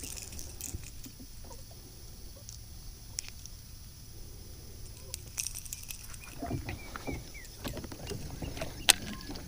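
Small clicks, knocks and rustles from handling a fishing rod and tackle on a boat, with one sharp click near the end, over a low steady outdoor background.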